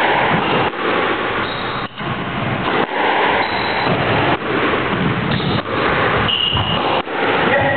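Squash rally: the ball struck by racquets and slapping off the court walls about every second, with short high squeaks of shoes on the wooden floor. All of it sits over a constant loud rushing noise.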